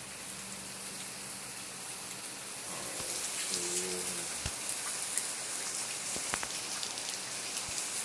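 Heavy rain pouring down, a steady hiss that grows heavier about three seconds in, with individual drops ticking sharply on nearby surfaces.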